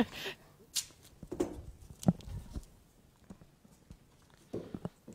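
Light handling noise: a few soft knocks and rustles as a cloth-wrapped doll and props are handled close to a microphone.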